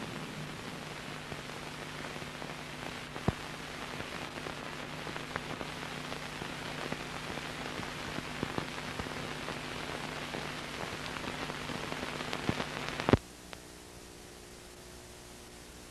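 Hiss and crackle of an old film soundtrack with scattered clicks and pops over a low steady hum. It cuts off with a loud pop about 13 seconds in, leaving a fainter hum.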